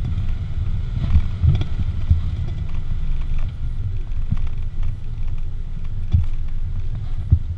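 Engine of a doorless off-road 4x4 running low and steady as it crawls over a dirt trail, with several sharp knocks and clunks from the vehicle going over bumps.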